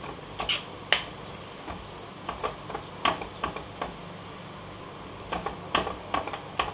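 A spoon scraping and tapping against a nonstick kadai while mashing and stirring thick potato stuffing: irregular clicks and scrapes, some in quick pairs.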